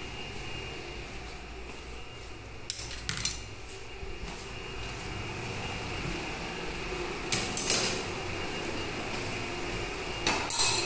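Pots and dishes clattering as they are handled, in three short bursts: about three seconds in, around seven and a half seconds, and just before the end, over a steady low hum.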